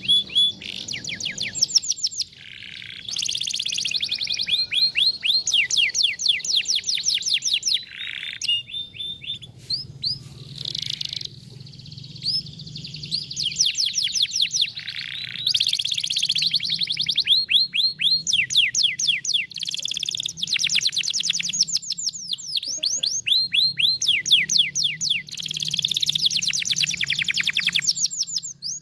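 Canary singing: fast trills of rapidly repeated downward-sweeping whistles, broken into phrases by brief pauses, over a faint low hum.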